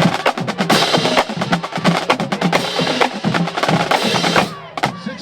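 Percussion-heavy music: rapid, sharp wood-block-like clicks over repeated drum hits, easing briefly near the end before picking up again.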